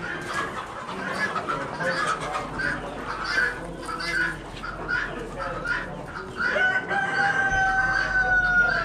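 Chickens clucking, with a rooster giving one long crow in the last couple of seconds, its pitch sagging slightly as it ends.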